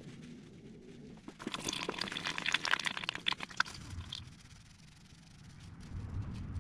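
DSG gearbox fluid draining from the open drain-plug hole in a thin stream and trickling into a plastic drain pan. There is a louder spell of spattering with small clicks for a couple of seconds in the middle.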